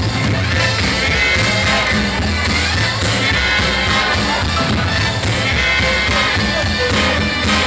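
A swing band playing, with a singer's voice over a steady bass line.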